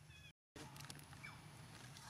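Near silence: faint outdoor ambience with a low hum and hiss, broken by a brief dead-silent gap about a third of a second in.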